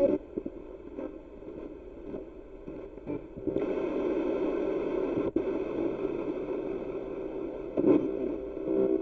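Spirit box sweeping through radio stations: a choppy wash of static with brief snatches of broadcast sound. It gets louder about three and a half seconds in.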